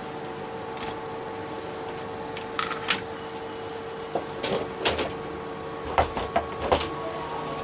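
Scattered light clicks and knocks of small parts or tools being handled on a workbench, over a steady hum.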